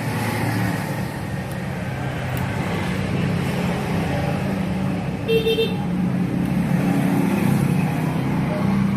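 Road traffic: a motor vehicle's engine running steadily, with a short horn toot about five seconds in.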